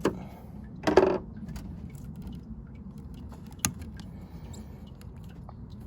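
Hand tools clicking and clattering against the heater hose fitting: a sharp click, a short louder clatter about a second in, and another sharp click near the middle, over a steady low background hum.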